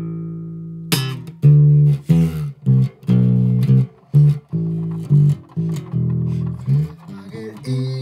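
Background music of plucked guitar and bass, a run of short separate notes with a strong low bass line.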